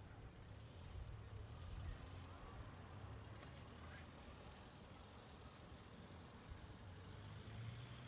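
Faint courtyard ambience: a low, steady rumble of distant road traffic under a soft hiss.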